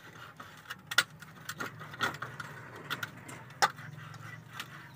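Knife scoring a raw chicken leg quarter on a steel plate: irregular sharp clicks as the blade knocks against the metal, the clearest about one, two and three and a half seconds in. A faint low hum runs underneath.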